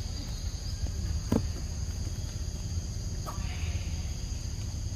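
Steady insect chorus, a high unchanging buzz on two pitches, over a low rumble, with two short sharp sounds, one about a second and a half in and one just past three seconds.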